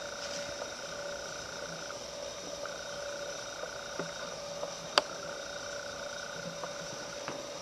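Steady electrical hum with fixed whine tones, and a higher whine that cuts out and back in a few times. Light clicks are scattered through it, with one sharp click about five seconds in.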